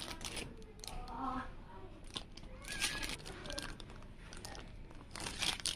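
Small clear plastic accessory bags crinkling and rustling as they are handled, in a few short spells.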